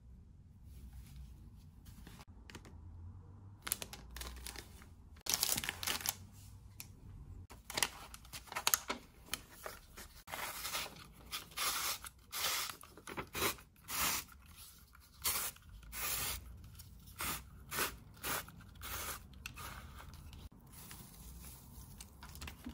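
Handheld manual paper shredder cutting paper into strips. It comes in repeated short bursts of shredding about once a second, starting a few seconds in.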